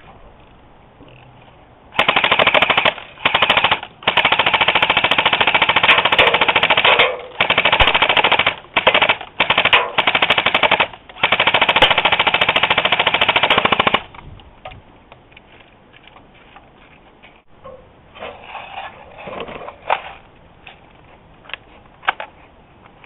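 Airsoft guns firing full-auto in long rapid bursts, with a few short pauses, for about twelve seconds. Then only a few fainter scattered shots.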